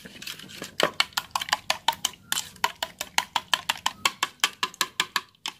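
Metal spoon stirring a beaten raw-egg mixture in a ceramic bowl, clinking against the bowl in a rapid, even rhythm of about six strokes a second that stops just before the end.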